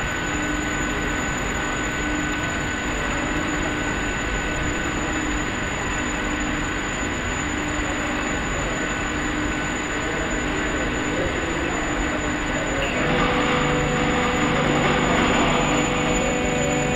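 Steady industrial machinery running, a constant hum with a few fixed tones over a wash of noise. About thirteen seconds in it grows louder as a further low hum and more hiss join in.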